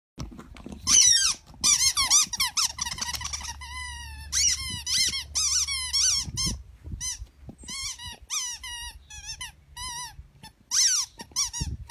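Squeaky toy squeaking over and over as a Staffordshire bull terrier chews on it, in quick runs of high, wavering squeaks with short gaps between.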